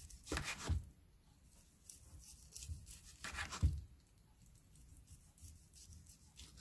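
A kitchen knife slicing through boiled pork belly twice, each stroke a short scraping draw that ends in a soft knock on a plastic cutting board. The first comes about half a second in and the second about three and a half seconds in.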